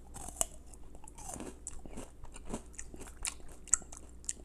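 A person biting into and chewing crispy cereal tubes filled with sweet milk cream: a quick, irregular run of short, sharp crunches, with a few louder bites.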